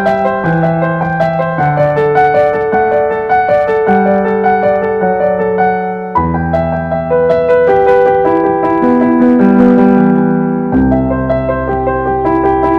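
Background music: piano playing a steady run of notes over held bass notes, with the harmony changing about six seconds in and again near the end.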